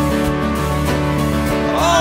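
Live worship band playing an instrumental passage, with electric guitar and keyboard holding steady chords. A singing voice comes in just at the end.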